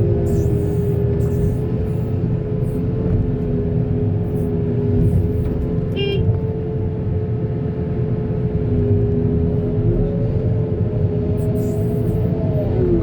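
Backhoe loader's diesel engine running steadily under work, with a constant whine over a low rumble. A short high-pitched beep sounds once about six seconds in.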